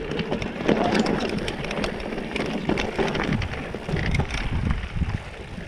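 Mountain bike riding down a rocky trail: tyres crunching over loose stones and the bike rattling with many small knocks, with wind on the microphone.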